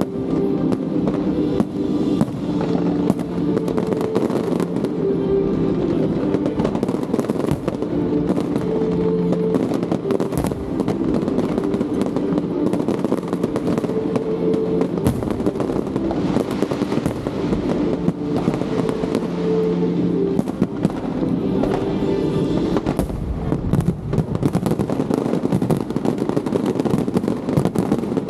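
Fireworks display: dense, continuous crackling and popping of aerial shells, with music playing along with it.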